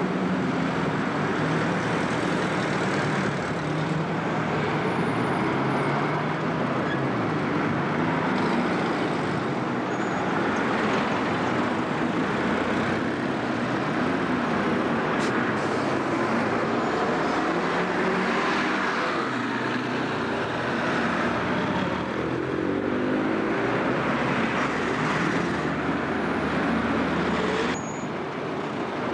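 Diesel bus engines running and pulling away through street traffic, their pitch rising and falling, over a steady background of road noise. The sound changes abruptly near the end.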